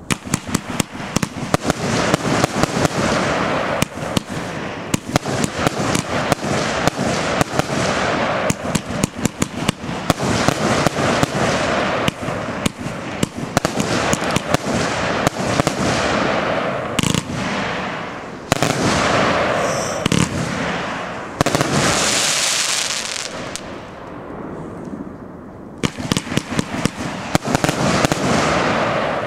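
Heron Professional Powerbox 1 compound firework battery firing: a rapid, near-continuous string of launch thumps and bursting shells. It eases into a spell of hissing about three-quarters through, then rapid shots pick up again near the end.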